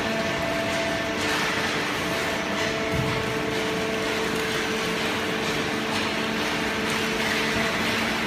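Automatic horizontal waste-paper baler and its chain infeed conveyor running: a steady machine hum with a few held tones over an even mechanical noise.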